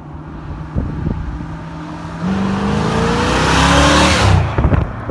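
Chevrolet Bel Air's 454 big-block V8 idling, then revved: the engine note climbs steadily from about two seconds in to a loud peak, then drops back near the end.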